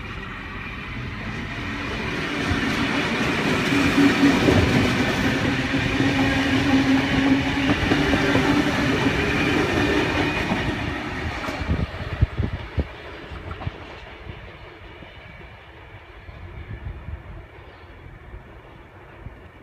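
V-set double-deck electric train pulling out and running past, its motor hum and wheel noise building to a peak and then fading as it draws away. About twelve seconds in there are a few sharp clacks of wheels over rail joints.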